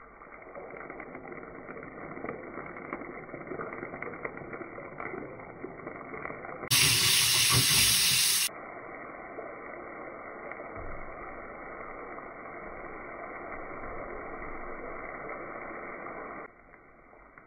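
Minced garlic sizzling in hot oil in a T-fal frying pan, a steady crackling hiss. About seven seconds in it turns much louder and brighter for about two seconds, then returns to the steady sizzle.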